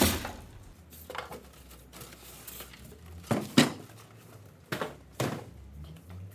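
Plastic-wrapped metal parts of a bench drill press knocking and clattering as they are lifted out of a cardboard box and set down on a workbench. About six separate knocks; the loudest comes about three and a half seconds in.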